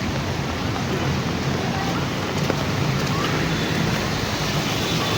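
Heavy rain falling steadily, an even hiss with a low rumble beneath it.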